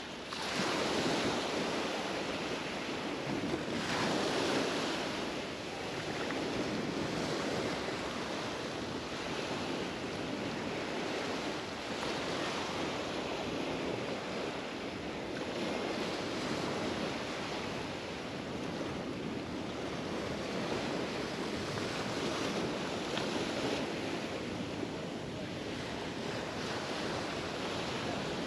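Mediterranean surf washing onto the beach, with swells of louder breaking about a second in and again around four seconds, then a steady wash.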